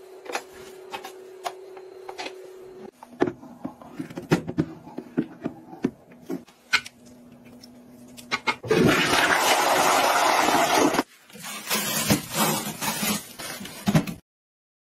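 Plastic clicks and knocks over a steady low hum, then a toilet flushing, with about two seconds of loud rushing water. Irregular rubbing and clatter follow, and the sound cuts off suddenly near the end.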